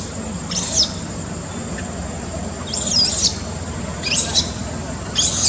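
Infant macaque squealing: four short, high-pitched, wavering cries, the longest about three seconds in.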